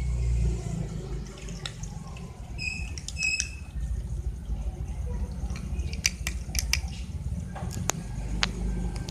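Cats and kittens crunching dry kibble off a tiled floor: a handful of sharp clicks, most of them about six to eight seconds in, over a steady low rumble. A few short, high chirps sound about three seconds in.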